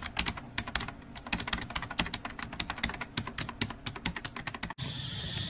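Computer keyboard typing sound effect: rapid, irregular key clicks, several a second. Near the end it cuts off suddenly and a steady high hiss takes over.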